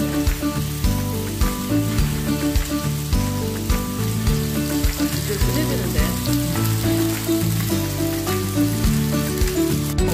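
Pork belly (samgyeopsal) sizzling in its fat on a round cauldron-lid griddle, a steady hiss, under background music.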